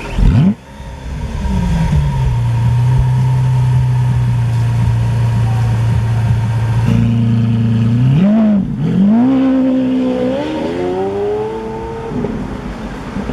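Lamborghini Aventador's 6.5-litre V12 starting up. A loud flare of revs falls back within a couple of seconds into a steady fast idle. Later comes a quick blip of the throttle and a slower climb in revs, which drops back near the end.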